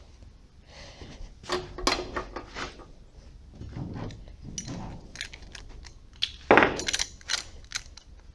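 Metal hand tools and sockets clinking and clattering in irregular knocks while being rummaged through and handled, with a louder burst of clanks about six and a half seconds in.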